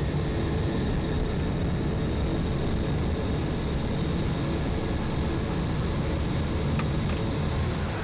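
Jet engines and airframe rumble heard inside the cockpit of an E-3 Sentry rolling along the runway: a steady, heavy low rumble with a faint steady high whine.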